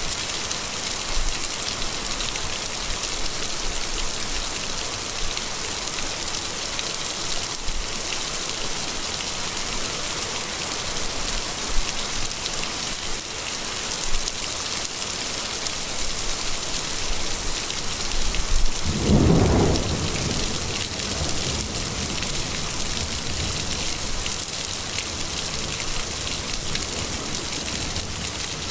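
Heavy rain pouring down steadily in a thunderstorm. About two-thirds of the way in, a loud low rumble of thunder swells and dies away over a couple of seconds.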